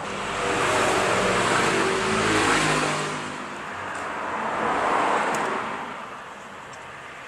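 BMW R1150R boxer-twin motorcycle engine running and revved up twice, then settling back toward idle. This is the engine the owner brought in for a knocking noise from the left cylinder.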